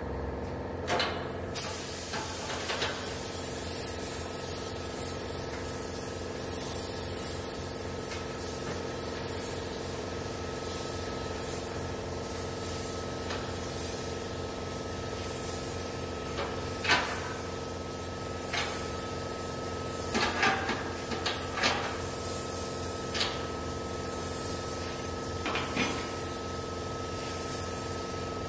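Air spray gun hissing steadily as it sprays primer, setting in about a second and a half in, with a scattering of light knocks and clicks.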